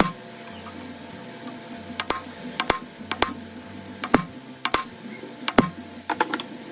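Irregular sharp metallic clicks and taps, about a dozen, several in quick pairs, each with a brief ring, over a faint steady machine hum.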